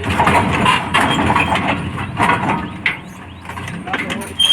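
Diesel engine of a backhoe loader working under load, with a run of irregular knocks and clatter from the machine and its load of mud.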